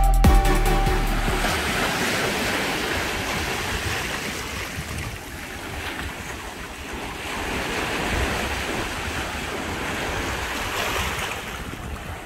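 Sea waves washing in over a rocky, pebbly shore, the surf swelling and easing, with wind buffeting the microphone. The tail of background music fades out in the first second or so.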